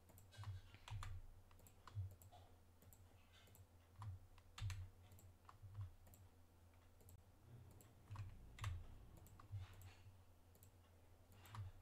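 Faint, irregular clicks of a computer mouse button and keyboard keys being pressed, one every half second to second or so, over a faint low hum.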